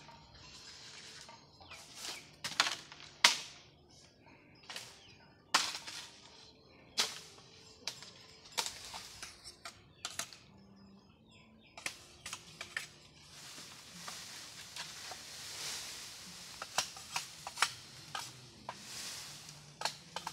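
Irregular sharp knocks and cracks, one every second or so with uneven gaps, mixed with rustling of dry brush: a long-handled hand tool hacking at soil and undergrowth while clearing a slope.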